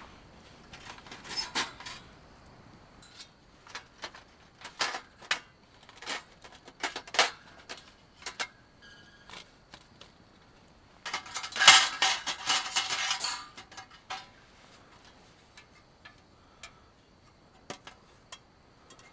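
Scattered clinks and knocks of camp cookware and utensils being handled, with a denser clattering burst about eleven seconds in that lasts around two seconds.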